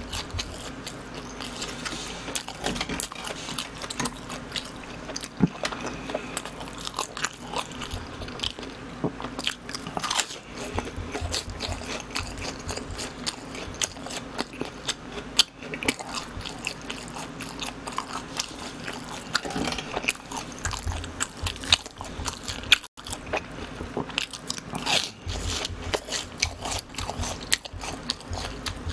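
Close-miked chewing and biting of BHC cheese balls, fried dough balls with a soft cream-cheese filling: a continuous run of small, sharp crunches and chewing.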